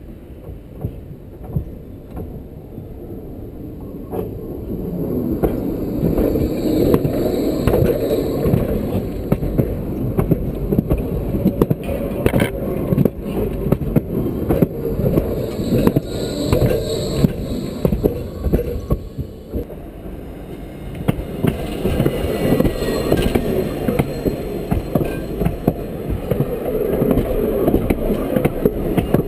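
Trams passing close by on the rails: steel wheels rolling over the track with a loud, rapid clicking clatter that builds as the first tram nears, eases briefly, then builds again as a second tram comes alongside. A faint high whine rises out of the clatter twice.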